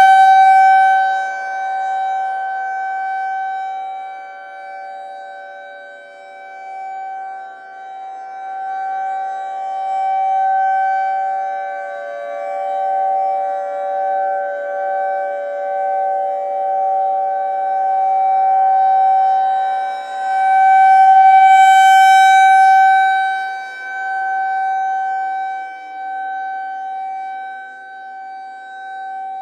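Federal Signal 2001-SRNB rotating outdoor warning siren sounding a steady Full Alert tone. Its volume swells and fades as the rotating horn sweeps past. About 21 seconds in, a second, more distant siren winds down, its pitch falling slowly while the near siren holds its tone.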